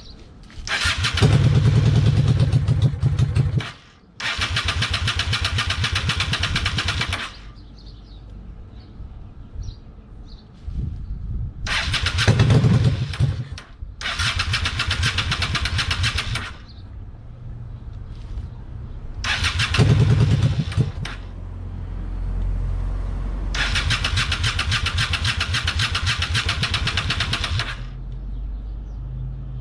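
Honda VLX 600 V-twin motorcycle being cranked on its electric starter in repeated bursts of a few seconds each, the engine turning over as it is tried for a start. A low steady rumble runs underneath in the last third.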